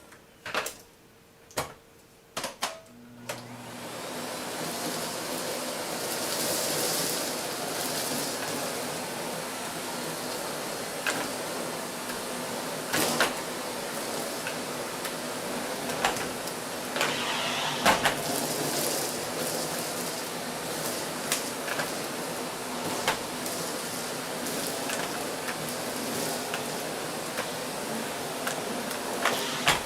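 A few sharp clicks, then a vacuum cleaner motor starts about three seconds in and runs steadily with a low hum. Brief sharp ticks and rattles come through it as it picks up shredded paper.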